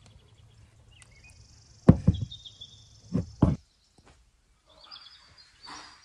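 Three dull knocks: one about two seconds in and two close together a second later. Under them are a high, steady trill and faint bird chirps.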